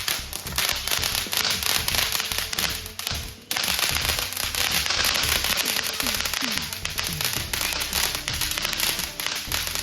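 Firecrackers and fireworks going off in a dense, continuous crackle of rapid small bangs and pops. There is a brief lull about three and a half seconds in, then the crackling comes back thicker.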